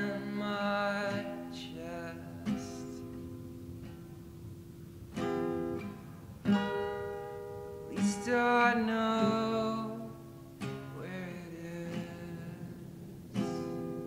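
Acoustic guitar strumming chords, each strum left to ring, one every second or two.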